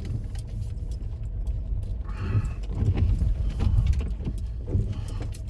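Rear-wheel-drive car driving slowly through deep snow: a low, uneven rumble of engine and tyres, with light rattles and clicks.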